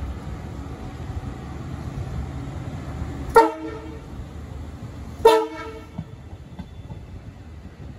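Long Island Rail Road bilevel push-pull train rolling past with a low rumble, its horn giving two short blasts about two seconds apart near the middle.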